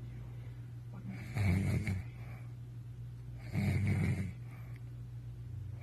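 A man snoring heavily in a deep, drunken sleep. Two loud, rasping snores come about two seconds apart, with quieter breathing between them, over a steady low hum.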